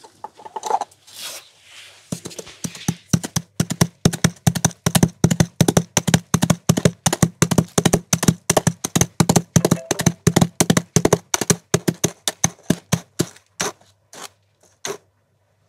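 Foley horse hoofbeats made by striking coconut shell halves: a fast clip-clop that starts about two seconds in, keeps up a quick beat, then slows to a few last strikes near the end as the horse comes to a stop.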